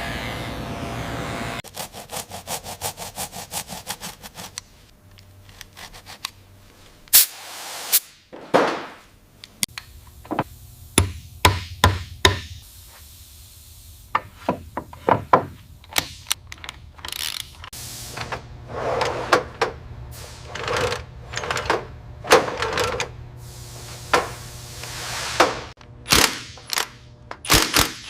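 Hand-tool work in a workshop: a fast run of even ticks for a few seconds, then a long series of irregular knocks, thunks and scrapes.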